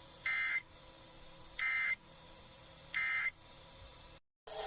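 Emergency Alert System end-of-message signal: three short bursts of screechy digital data tones, each about a third of a second long and a little over a second apart, over faint broadcast hiss. They mark the end of the tornado warning message. Near the end the audio cuts out completely for a moment.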